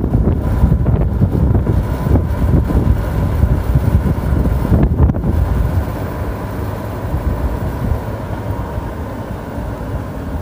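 Wind buffeting the microphone on a moving golf cart, over the cart's steady running noise. The buffeting is heaviest at first and eases about six seconds in.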